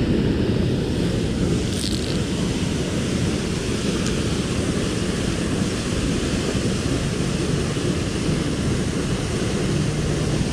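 Steady rushing of river water, with wind buffeting the microphone.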